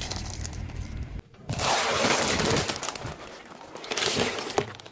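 A car tyre rolling over cartons of hens' eggs: a loud burst of shells cracking and crunching about a second and a half in, then a second, shorter crunch near the end. Before that, the tyre crackles as it presses down on a wicker basket.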